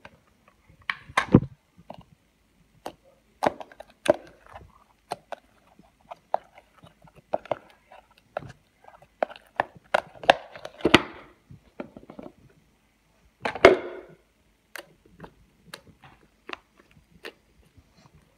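Slightly sticky butter slime being squished, poked and folded by hand, giving irregular sharp pops, clicks and squelches, the loudest about a second in and again near the end.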